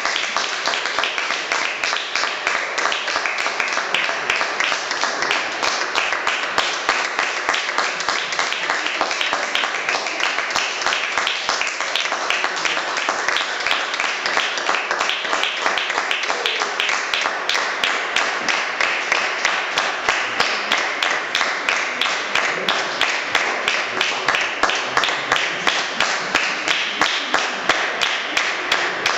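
Audience applauding at the end of a performance: a dense patter of many people clapping, which settles into a regular rhythmic beat in the second half.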